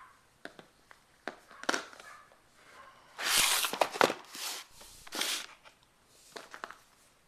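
Handling noise: a few light clicks and knocks, then bursts of rustling and scraping, the loudest about three seconds in.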